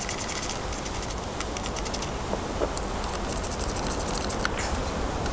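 Runs of fast, light clicking and rattling from hands working on the wiring and parts inside an aircraft engine bay, over a steady hiss of background noise.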